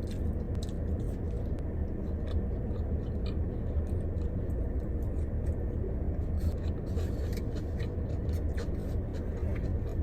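Close chewing and crunching of food, with scattered sharp clicks and scrapes, over a steady low rumble inside a car.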